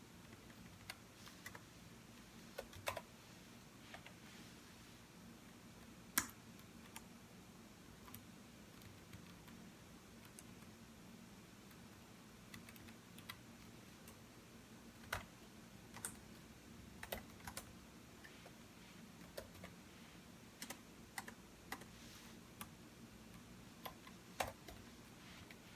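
Computer keyboard typing: scattered, irregular keystroke clicks in small clusters with pauses between them, over a faint steady low hum.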